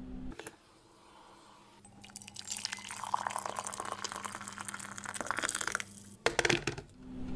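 Liquid poured into a cup, a splashing, bubbling pour that builds over a few seconds, followed by two sharp knocks near the end.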